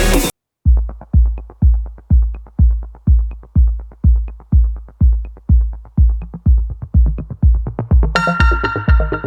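Electronic background music: after the full mix cuts out briefly, a deep bass drum-machine kick pulses about twice a second with a faint tick on top, and synthesizer tones come in near the end.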